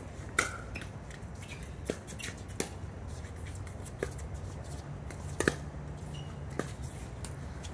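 Sharp pops of a plastic pickleball struck by paddles, about half a dozen spread through, the loudest about five and a half seconds in, over a steady low hum.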